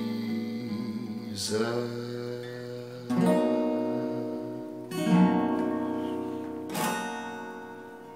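Acoustic guitar playing the song's closing chords: four slow strummed chords, each left to ring, fading away near the end.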